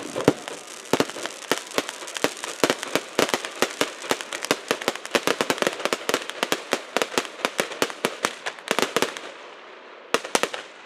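Fireworks going off in a rapid run of sharp cracks and pops, several a second, that stops about nine seconds in, followed by a couple of last cracks near the end.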